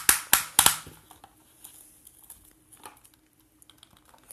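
Yellow plastic toy excavator handled by hand: a quick run of sharp plastic clicks and clacks in the first second as its arm is swung round, then only faint small ticks.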